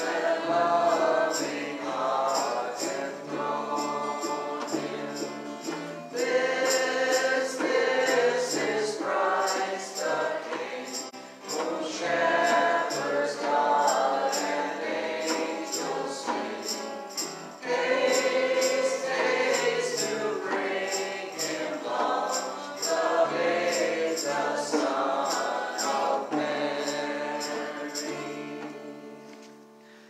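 Church worship band singing a hymn together, with guitars underneath and a jingling percussion stroke on each beat, about twice a second. The music dies away near the end as the song finishes.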